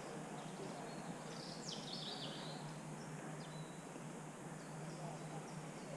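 Steady background noise with a few high, quick falling bird chirps, mostly bunched about one and a half to two and a half seconds in.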